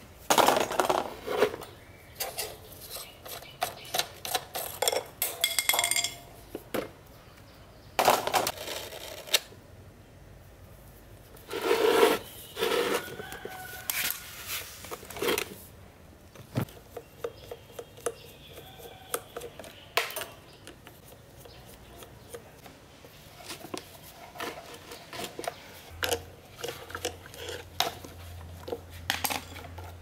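Metal clinks, taps and scrapes of an old, rusty electric table fan being taken apart by hand, in irregular clusters with short pauses between.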